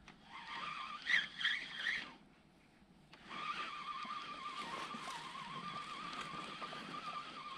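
Fishing reel being wound to retrieve a lure on a straight retrieve, a steady whine, stopping for about a second near the two-second mark and then winding on.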